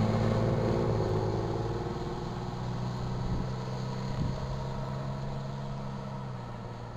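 Pickup truck driving away after passing close by, its engine hum steady in pitch and fading, gone about six seconds in.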